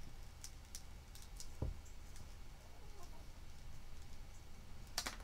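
Scissors snipping folded paper in a few light, scattered cuts, with a dull knock about one and a half seconds in.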